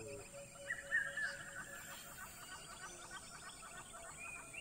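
Several wild birds calling together: overlapping chirps and trills, with one sharp falling chirp, the loudest note, about a second in.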